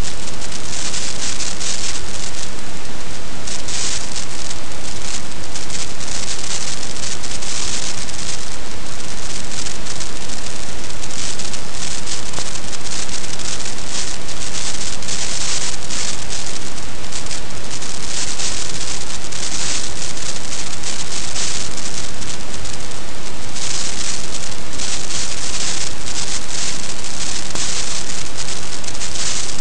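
Steady rain hissing on an outdoor wildlife webcam's microphone and housing, loud and even, swelling and easing every few seconds.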